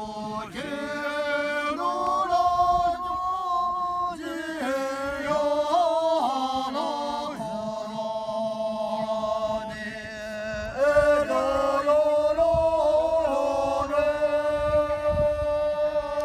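A group of men and women singing together in unison without accompaniment, a slow chant-like song with long held notes.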